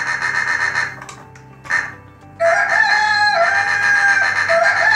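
Rooster crowing sound effect played by a virtual robot as it moves, repeating. One call runs for about a second at the start, and a louder run of calls starts a little after two seconds in.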